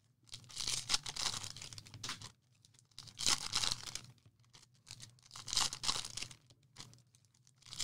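Trading card pack wrappers being torn open by hand, three bouts of crinkly tearing with short pauses between.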